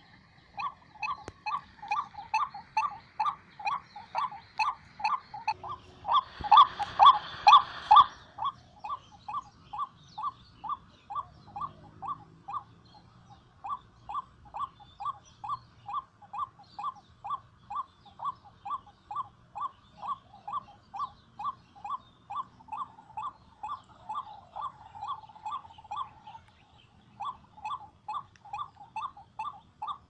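White-breasted waterhen (burung wak-wak) calling a long, monotonous run of repeated 'wak' notes, about three a second. The calls get louder and harsher for a couple of seconds early in the run, and there is a brief pause near the end.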